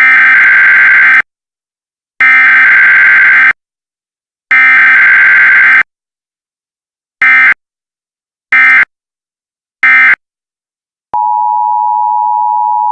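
Emergency Alert System data bursts: three long screeching digital header bursts, each about a second with a second's gap, then three short bursts, followed about 11 seconds in by a steady attention tone.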